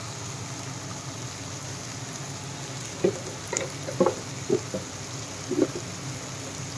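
Ivy gourd curry sizzling steadily in a kadai on the stove while coriander powder is sprinkled in. A few short knocks come in a cluster from about three seconds in.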